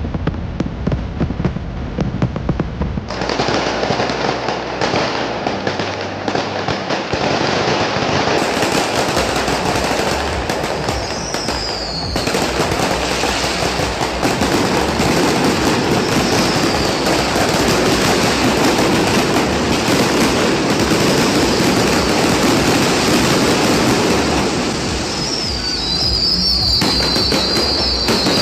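New Year fireworks display: a dense, continuous barrage of bangs and crackling that grows fuller about three seconds in, with high falling whistles now and then.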